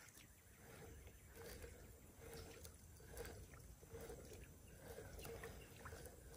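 Near silence: faint outdoor ambience with a few short, faint bird chirps and occasional soft clicks.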